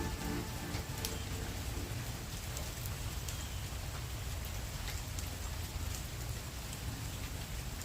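Steady tropical-storm rain falling, an even hiss with scattered drop ticks and a low rumble underneath.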